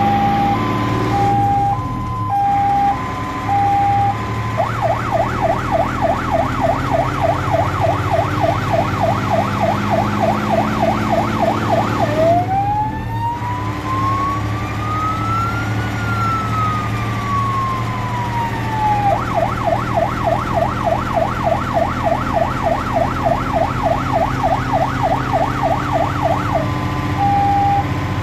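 Electronic fire-engine siren from a ZURA 1120 modulator, heard from inside the cab of a Star 200 fire truck over the drone of its diesel engine. It starts as a two-tone hi-lo, then a fast yelp of about four sweeps a second, then one slow rise and fall, then the fast yelp again, and returns to the two-tone near the end.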